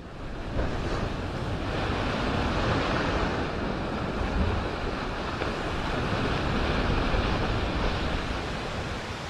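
A steady rushing noise that fades in at the start, then swells and eases slowly, with no distinct strokes or tones.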